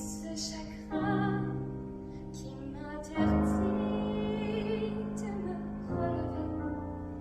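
Female voice singing a slow ballad over piano accompaniment. Piano chords are struck three times, each left to ring and fade, and the singer holds a long note with vibrato in the middle.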